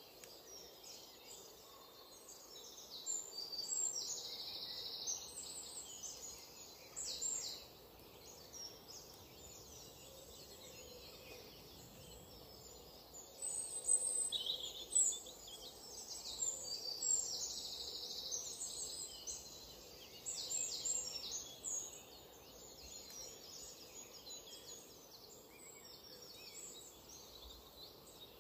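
Bird chirps, short high-pitched calls in several bouts, over a steady faint background noise.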